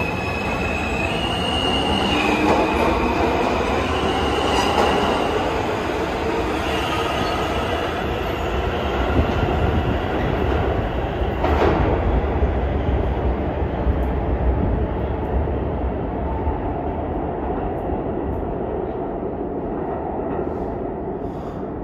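R160 subway train accelerating: its electric propulsion whines up in pitch, with high steady tones that step upward over the first several seconds, over a steady rumble of wheels on rail. The whole sound eases off slightly near the end.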